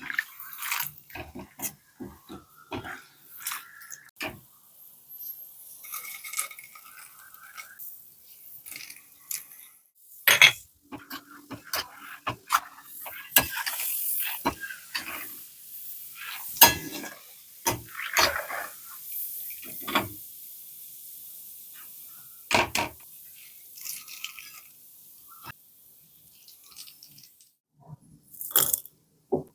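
Kitchen utensils and dishes being handled: irregular clinks, knocks and scrapes, with a few short rustling or splashing stretches in between.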